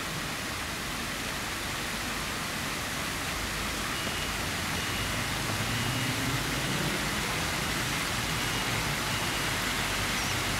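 Archibald Fountain's water jets spraying and splashing into its basin: a steady rushing hiss.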